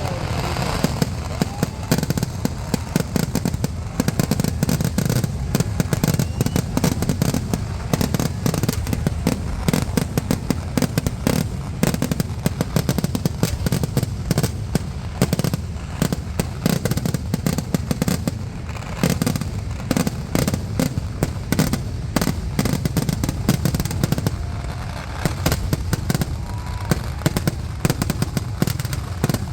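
Kerala temple-festival fireworks (vedikettu) going off in a continuous barrage. Rapid, overlapping bangs pile over a deep rumble with no break.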